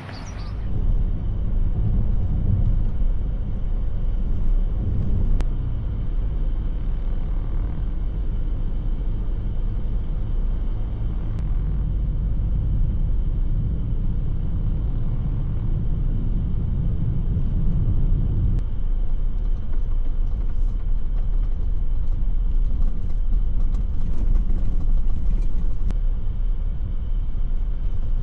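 Mazda3 hatchback with the 1.5-litre petrol four driving at a steady pace: a steady low rumble of engine and road noise, easing slightly about two-thirds of the way through.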